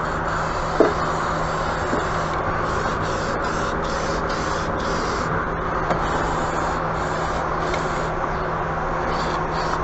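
Paint being sprayed in repeated short bursts of hiss over a steady low hum.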